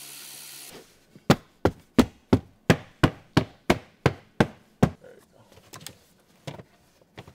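A cordless drill/driver runs steadily for under a second and stops. Then comes a run of about a dozen sharp, evenly spaced knocks, roughly three a second, and a few scattered ones after.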